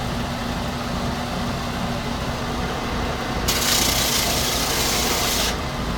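Plug-in power tool rounding over and smoothing the cut edge of a replacement window pane: a steady grinding, with a harsher rasping stretch from about three and a half to five and a half seconds in as the edge is worked.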